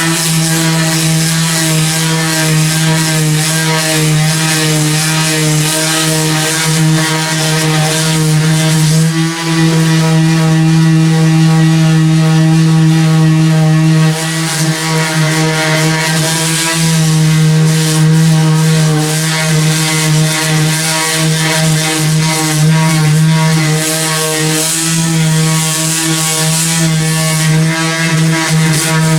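Cordless electric sander running steadily with a constant motor hum, sanding old paint off a car's body panels.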